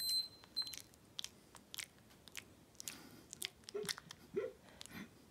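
Two-week-old basset hound puppy making wet mouth-smacking clicks while held up, with a couple of short, faint squeaks about four seconds in.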